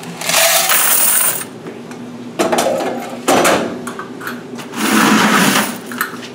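A washer's metal coin box of quarters emptied into a bucket: a rush of pouring, clinking coins lasting about a second. Then several metallic clanks and rattles as a key works the coin-vault lock of a commercial front-load washer and the vault is opened.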